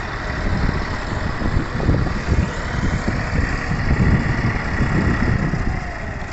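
Tractor diesel engine running, its loudness rising and falling unevenly.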